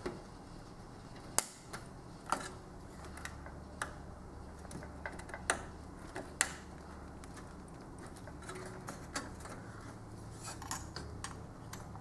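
Scattered small clicks and taps of fingers working plastic wire-harness connectors on an LCD TV's main circuit board, about a dozen at irregular intervals with a quick run of them near the end.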